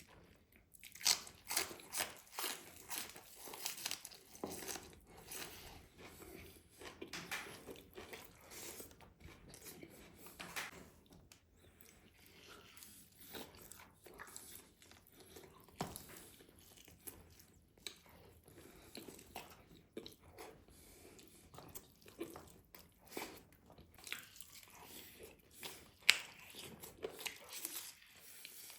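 Close-miked eating: a person chewing rice and meat with irregular wet mouth clicks and smacks, the loudest smack about 26 seconds in.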